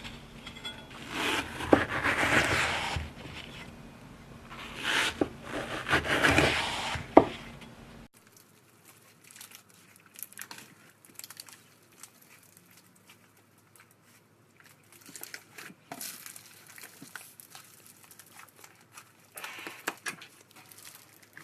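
Slime being squeezed and stretched by hand, making crinkling, crackling sounds with a few sharp pops. About eight seconds in it cuts to a much quieter stretch of fine crackling, which grows louder again near the end.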